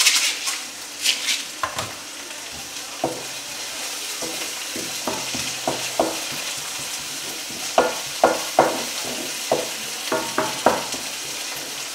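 Grated vegetables with onion and garlic sizzling in oil in a frying pan as they are stirred to soften. A spatula knocks and scrapes against the pan now and then, more often in the second half.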